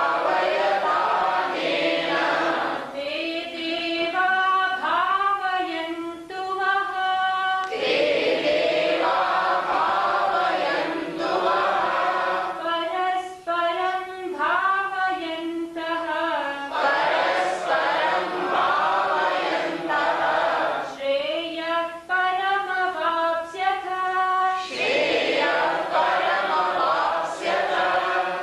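Group chanting in call and response: stretches of many voices together alternate with a single, clearer melodic line, each turn lasting about four seconds.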